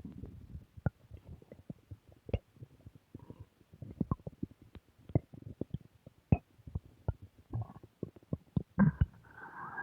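A human stomach growling: irregular gurgling pops and clicks over a low rumble, with a louder low gurgle about nine seconds in followed by a brief higher squeak near the end.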